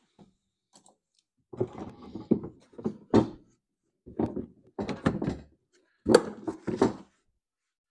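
Hard plastic side panel of a John Deere Z465 zero-turn mower being pushed and seated back in place: five clusters of knocks and rattling thunks, starting about a second and a half in.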